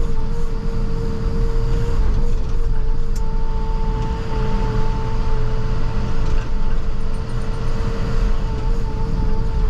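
International TerraStar plow truck running and driving: a steady low rumble with a constant whine over it, and a higher whine joining about three seconds in.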